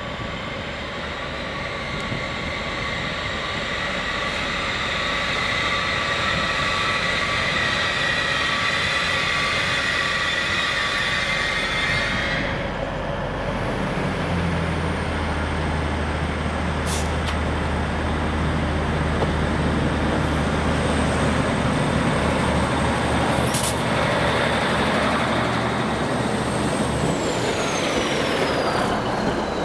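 Train running through the station. Its sound builds over the first few seconds as a steady whine. From about halfway a low engine drone comes in, with two sharp clicks, and a high whine falls in pitch near the end.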